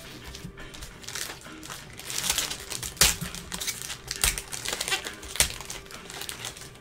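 Trading-card pack wrapper being torn open and peeled off by hand, crinkling irregularly with a few sharp louder rips near the middle.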